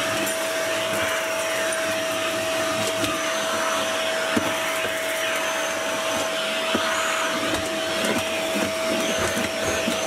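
Vacuum cleaner running steadily with a constant whine, sucking up spilled coffee grounds from a shelf, with a few small knocks.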